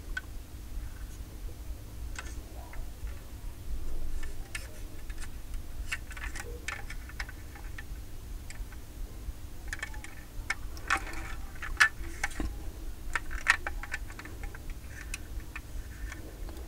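Light, irregular clicks and taps of fingers handling a 1:36 diecast model car, over a low steady hum.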